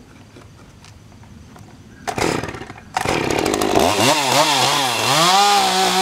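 Two-stroke gas chainsaw started about two seconds in. It catches a second later and revs unevenly up and down, then holds at a steady high pitch near the end as it is set to a hardwood slab.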